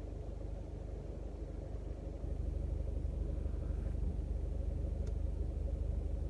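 Car engine idling while it warms up, heard from inside the cabin as a steady low rumble that gets louder about two seconds in. A faint click sounds once near the end.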